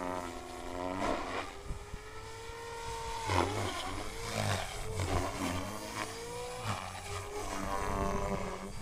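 MSH Mini Protos electric RC helicopter flying aerobatics: the motor and rotor whine keeps sliding up and down in pitch as it manoeuvres, with whooshing blade noise on the harder moves.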